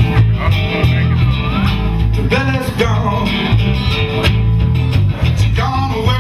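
Live blues band playing: a guitar lead with notes bending up and down over a steady bass line.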